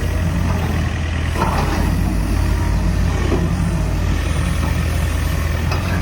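Excavator's diesel engine running steadily with a low rumble.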